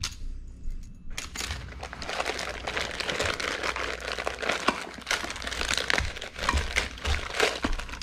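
Clear plastic zip-top bag crinkling as hands rummage through it, starting about a second in, with many small clicks.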